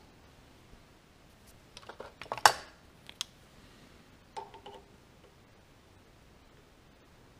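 Steel pliers clicking and scraping against the steel crank shaft of a milling machine's knee while working a small key out of its keyway. There is a cluster of sharp metal clicks about two seconds in, the loudest near two and a half seconds, then a few more with a brief ring a little later.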